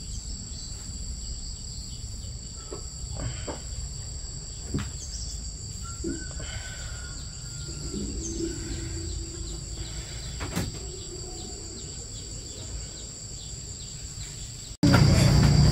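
Insects trilling steadily in a high-pitched chorus, with occasional faint knocks and small movement sounds. About a second before the end the sound cuts abruptly to a much louder, fuller background with a low rumble.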